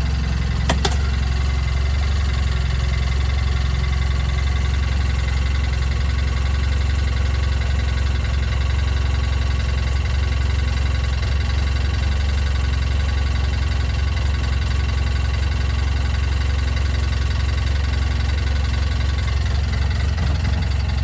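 Vehicle engine running steadily: an even low hum with faint steady tones above it. There is a single sharp click just under a second in.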